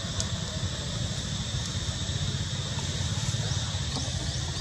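Steady outdoor background noise: a continuous low rumble with a steady high-pitched drone above it, and no distinct calls.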